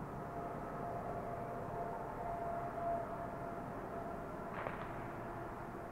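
Distant traffic rumble under a steady tone held for about four seconds. Near the end comes a single sharp pop of a distant firework.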